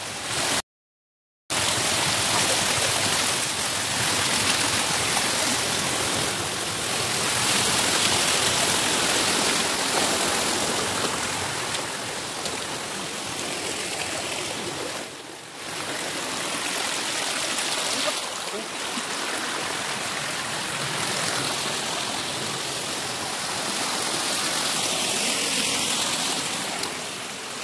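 Rushing water of a rocky stream and small waterfall, a steady hiss, cut off for under a second near the start and dipping briefly about halfway through.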